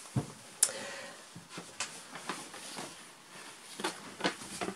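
A few light knocks and clicks in a small cabin, the sharpest a single click about half a second in, with more near the end.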